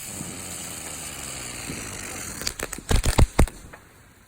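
Consumer firework going off: a steady hiss, then a rapid run of about six loud bangs near the end, after which it dies away.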